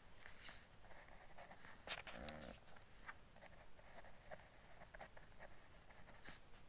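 Pen writing on paper: faint, scattered scratching strokes as a word is written out by hand. A brief faint voice-like sound comes about two seconds in.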